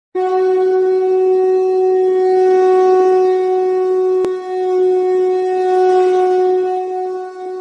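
Conch shell (shankha) blown in one long steady note, dipping briefly about four seconds in, then carrying on and tailing off near the end.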